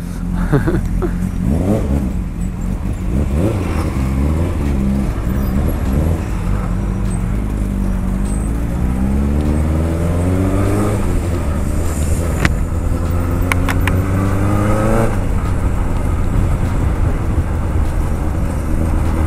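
1979 Honda CB750K's air-cooled inline-four being ridden, running steadily, then rising in pitch as it accelerates about eight seconds in and again about twelve seconds in, each time dropping back at a gear change.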